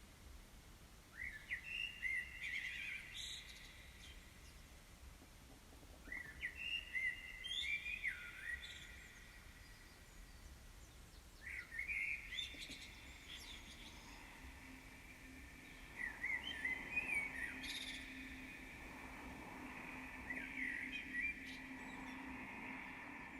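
Experimental electronic music made of birdsong-like chirping phrases that recur about every five seconds over a faint noise bed. A steady low hum comes in about halfway through and holds.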